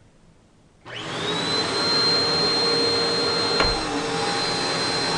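Eureka PowerSpeed Pro Swivel Plus bagless upright vacuum switched on about a second in: the motor spins up with a rising whine, then runs steadily with a high whine over a rushing air noise. A single knock comes about two and a half seconds after start-up.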